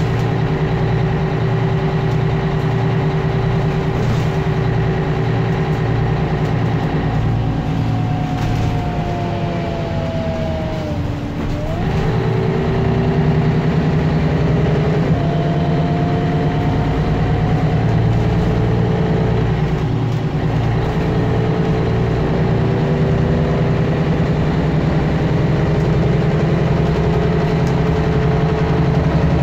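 Mercedes-Benz Citaro O530G articulated bus's diesel engine running under way, heard from inside the bus. Its note sags and then climbs back up about a third of the way in, and shifts again shortly after.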